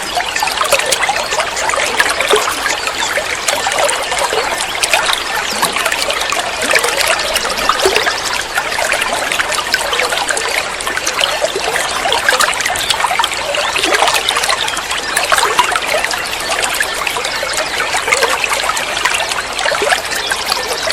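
Water trickling steadily, with a continuous babble of many small splashes.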